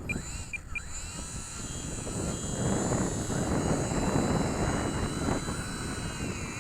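Twin small electric motors and propellers of a micro RC P-38 plane running with a high whine, ahead of takeoff. A few short high chirps come near the start, and a rushing air noise builds from about halfway in.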